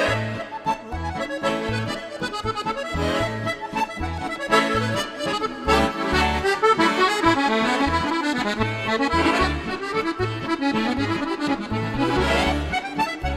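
Solo chromatic button accordion playing a kujawiak, a Polish folk dance tune: a quick melody over regularly repeating bass notes.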